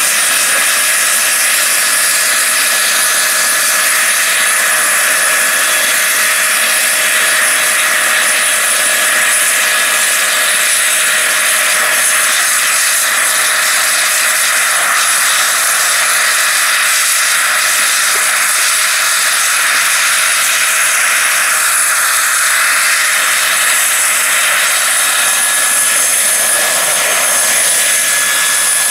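Turbine engine of a large radio-controlled scale Bell 412 model helicopter running with a steady whine over the whoosh of its spinning rotor blades, as the model lifts off the grass and hovers low.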